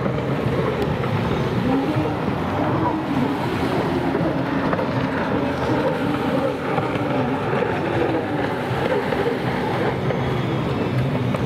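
Several racing jet skis running at high revs, their engine whine wavering up and down in pitch as the riders throttle through the buoy turns, over the hiss of water spray.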